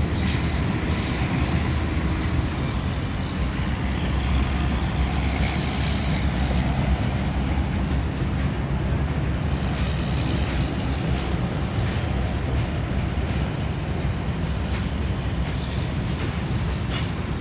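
Freight train of covered hopper cars rolling past: a steady rumble of steel wheels on the rails, with a few faint clicks.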